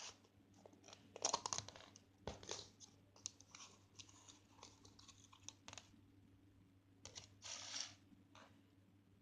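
Slime being squeezed and poked by hand: a string of irregular short crackles and pops. The loudest come a little after a second in and again near the end.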